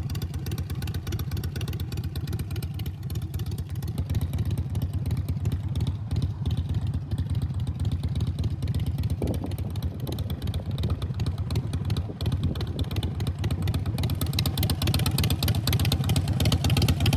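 Motorcycle engine running steadily while riding, growing a little louder over the last few seconds.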